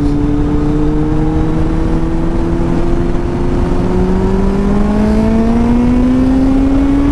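Kawasaki Z800's inline-four engine running under way as the bike accelerates, its note rising slowly and steadily in pitch, over a steady rush of wind.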